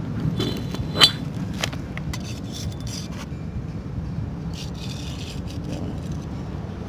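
Steel vernier caliper scraping and clicking against the steel piston of a hydraulic jack as its height is measured, with one sharp metallic click about a second in. The scraping stops after about three seconds, with a few fainter scrapes later, over a steady low background rumble.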